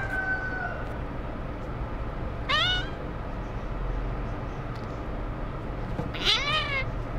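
A young kitten meowing twice in protest while it is held still for eye drops: a short rising meow about two and a half seconds in, and a longer meow that rises and falls near the end.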